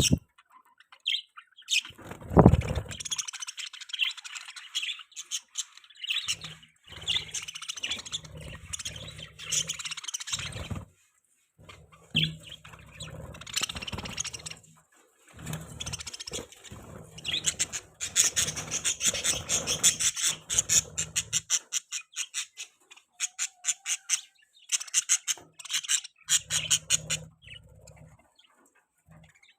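Budgies chirping and chattering in bouts of quick, high chirps, with brief pauses between bouts.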